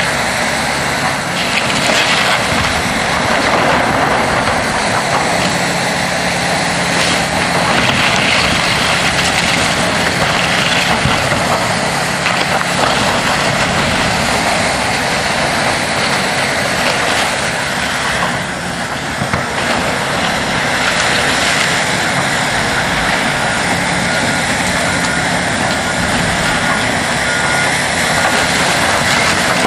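Diesel engines of heavy demolition machinery running steadily, with scattered knocks and crunches. A faint backup beeper sounds in the last several seconds.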